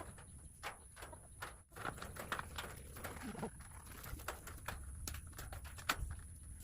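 Irregular sharp clicks and light metallic taps from wire mesh being cut and clipped, over a faint steady high tone.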